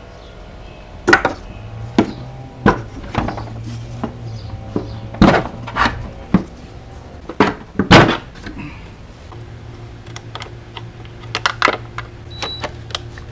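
Scattered sharp clicks and knocks of parts being handled in a car's engine bay, about a dozen over several seconds, with a steady low hum underneath.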